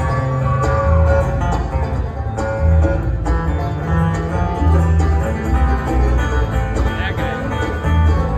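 Live bluegrass band playing: banjo, fiddle, upright bass and acoustic guitars together, with a steady bass line underneath.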